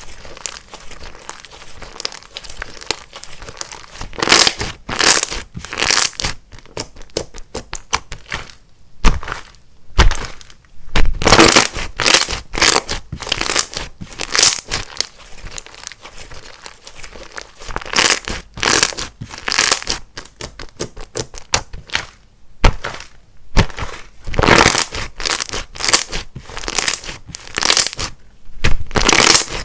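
Hands squeezing and folding slime, making irregular sticky clicks, crackles and pops that come in quick clusters.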